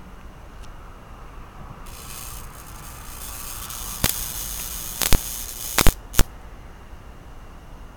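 Electric bug zapper's high-voltage grid arcing as an insect is electrocuted: a crackling sizzle starts about two seconds in and builds, then several loud sharp snaps come in quick succession before it falls quiet again.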